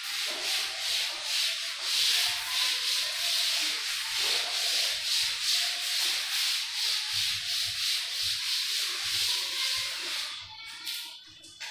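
A cloth wiped briskly back and forth across a chalkboard, erasing chalk writing, in quick even strokes of about two to three a second that stop shortly before the end.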